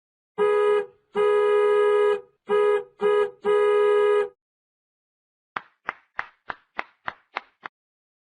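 Comic sound effects: a steady, buzzy horn-like tone sounds five times in a short-long-short-short-long pattern. Then, after a gap, comes a quick run of eight short plucked notes.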